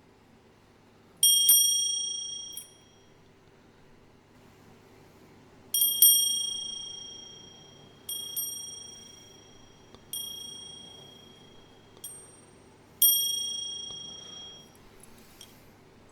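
A high, bell-like ding struck about six times, a few seconds apart, some strikes coming as quick doubles. Each ring dies away over a second or two.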